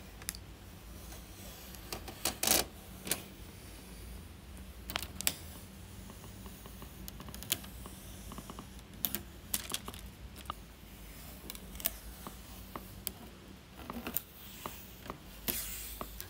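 Thin clear plastic protective film being peeled off the edge of a monitor's bezel: scattered small crinkles and sharp crackles, with a longer rustle about two and a half seconds in and another near the end.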